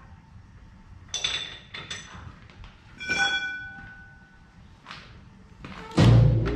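Two sharp metal clinks with a brief ringing tone, about one and three seconds in. Near the end a metal lathe starts up with a sudden heavy low hum and begins spinning up with a rising whine.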